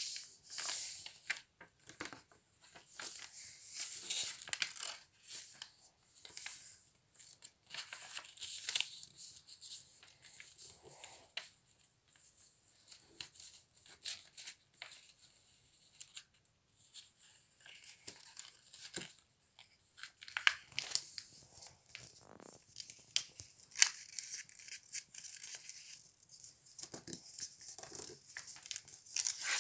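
A sheet of paper being folded by hand and its creases pressed flat with the fingers on a wooden tabletop: irregular rustling and crinkling with short strokes as the fingertips run along the folds.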